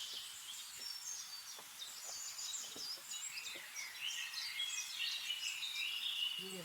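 Birds chirping and calling, many short high calls overlapping one another.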